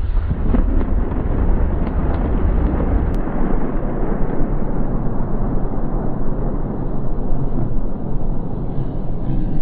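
Thunder rumbling after a lightning strike: a heavy, deep rumble for about three seconds that then eases into a steadier rushing roll.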